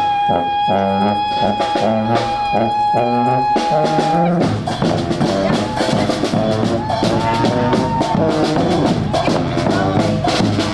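Street brass band with drums playing: a horn holds one long high note for about the first four seconds over regular drum beats, then the full band of horns carries on.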